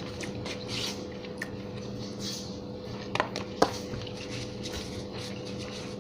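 Quiet eating sounds from someone eating fried chicken wings: faint mouth and plate noises with two small clicks about three seconds in, over a steady low hum.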